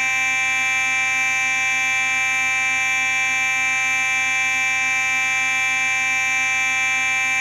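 Simplex 4903-9838 fire alarm sounding a continuous, unbroken buzzing tone rich in overtones, steady in pitch and loudness.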